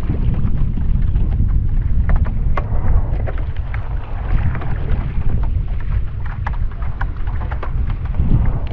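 Wind buffeting the microphone in a heavy, steady rumble, with many small splashes and drips of water scattered through it.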